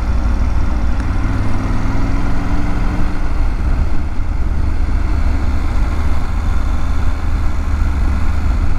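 Triumph Tiger 900 GT Pro's three-cylinder engine running as the motorcycle rides along, under a heavy low rumble of wind on the microphone. The engine note rises a little over the first three seconds, then sinks under the wind noise.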